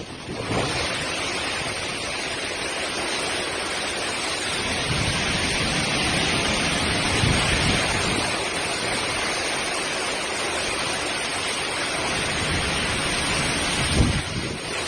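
Steady rushing noise of hurricane rain and wind, with a brief knock near the end.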